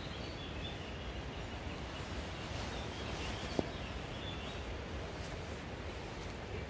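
Faint birdsong, a few short chirps over a steady outdoor background hiss, with a single brief tick about three and a half seconds in.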